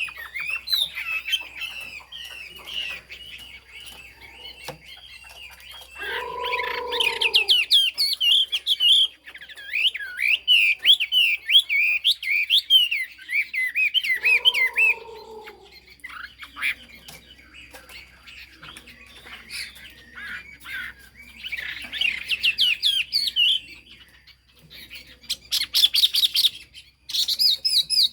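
Chinese hwamei singing: rapid, varied warbled phrases in several bouts with short pauses between them. Twice, about eight seconds apart, a lower-pitched call sounds under the song.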